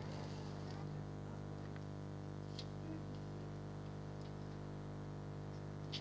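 Steady low electrical hum with many overtones, the built-in noise of a Tyco TVC8000 toy camcorder's recording, with a couple of faint ticks.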